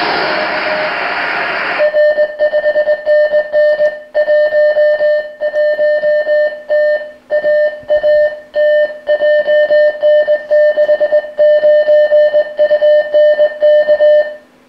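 Recorded Morse code (CW) signal on the 23 cm amateur band, heard through a receiver by aircraft scatter. At first it is a weak tone in receiver hiss. About two seconds in it comes up strong, and the keyed dots and dashes stand out cleanly over the quieted noise: the loud 'glint' as the plane reflects the signal.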